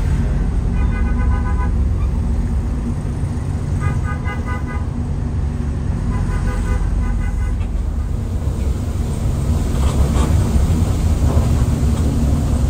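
A vehicle horn sounds three times, each blast about a second long and made of several notes at once, over the steady low running of a moving bus's engine and road noise.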